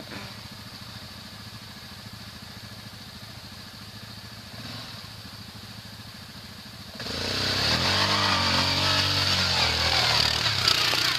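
Quad bike (ATV) engine running steadily and faintly at first; about seven seconds in it becomes much louder and revs up and down hard as the quad powers up a steep slope close by, with tyres scrabbling on leaves and dirt.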